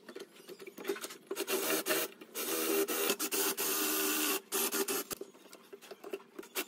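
Cordless drill boring dowel holes through a dowel jig into the edge of a pine pallet board. The motor whines and the bit grinds through the wood in short bursts, with one longer run of about two seconds in the middle.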